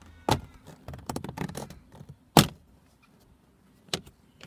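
Plastic speaker grille cover on a Toyota Camry dashboard being pried up, its retaining clips popping loose in a string of sharp clicks and snaps, the loudest about halfway through.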